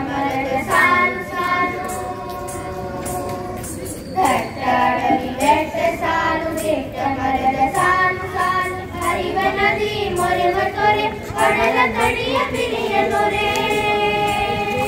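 Children's voices singing a song together.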